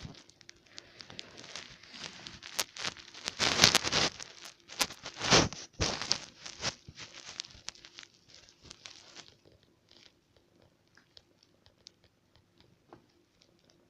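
Close rustling and crinkling handling noise with many sharp crackles. It is loudest midway and thins to a few faint clicks after about nine seconds.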